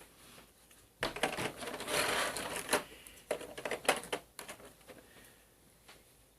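Plastic miniatures and packaging being handled: a burst of rustling and clicking about a second in, then a few separate sharp clicks before it fades.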